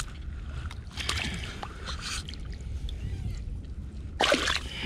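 Shallow water sloshing and splashing as a landed bar-tailed flathead is lowered into the shallows and handled, over a steady low wind rumble on the microphone. A brief voice sound comes near the end.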